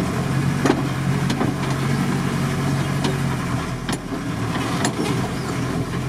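Volkswagen Transporter T3 van heard from inside its cab, its engine humming steadily as it creeps along a rutted dirt track. A few short knocks and rattles sound as the van bumps over the ruts.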